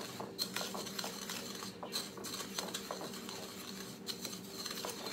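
Wooden spoon stirring dry panko breadcrumbs and ranch seasoning in a glass bowl: soft, irregular scraping with light taps of the spoon against the glass.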